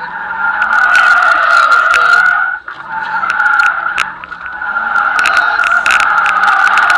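Ford Mustang drift car's tires squealing loudly in a sustained slide, heard from inside the cabin, the squeal dropping out briefly about two and a half seconds in before picking up again, with the engine running underneath.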